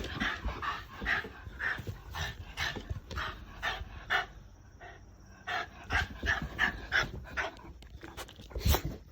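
Shiba Inu panting hard, about three quick breaths a second, as it greets someone in excitement. The panting pauses briefly midway, and there is a sharp knock near the end.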